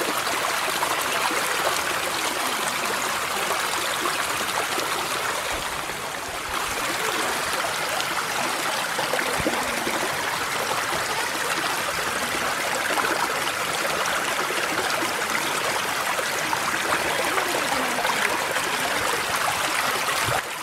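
Kościeliski Potok, a mountain stream, rushing steadily over rocks, briefly softer about six seconds in.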